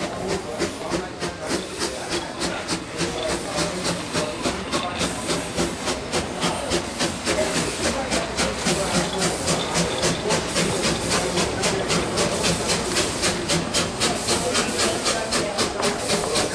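Steam locomotive A10 No. 6, an 1865 Neilson-built engine, working past under steam: its exhaust beats out evenly spaced chuffs, about two to three a second and picking up slightly, over a steady steam hiss.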